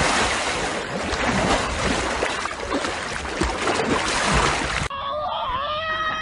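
Floodwater rushing and splashing around a half-submerged car, a loud, steady wash of noise. About five seconds in it cuts off abruptly, and a held, pitched sound with a few bends in it follows.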